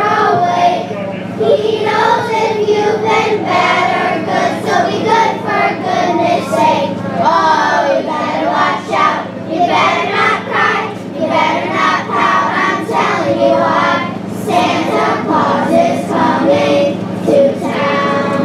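Children's choir of fourth-graders singing a Christmas song together, with a steady low hum underneath.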